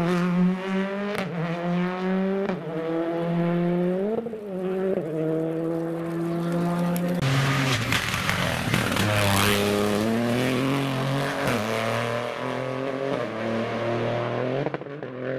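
Rally car engine revving hard, its note climbing and dropping through several gear changes. It grows louder and harsher from about seven seconds in.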